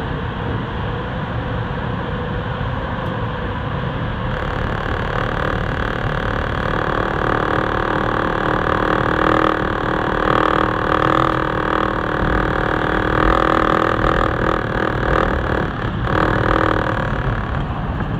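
TTC Line 2 subway train running through a tunnel: a steady rumble of wheels on rails, joined about four seconds in by a whine from the train's running gear that holds steady and drops away near the end, as the train comes into a station.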